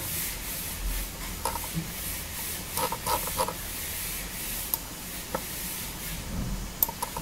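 Low steady microphone hiss and room tone with a few faint, brief clicks scattered through it.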